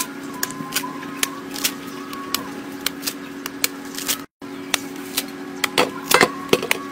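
Kitchen knife slicing through a peeled green mango: a run of irregular crisp cutting clicks, with a louder clatter near the end as a cut slice lands on a stainless steel plate. A steady low hum sits underneath.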